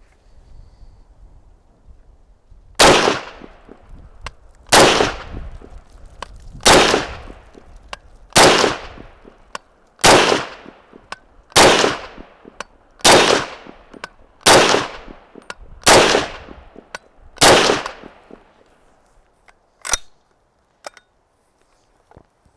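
M1 carbine firing ten semi-automatic shots of PPU factory .30 Carbine ammunition at a steady pace, about one every one and a half to two seconds, each a sharp crack with a short echo. A single smaller sharp click follows a couple of seconds after the last shot.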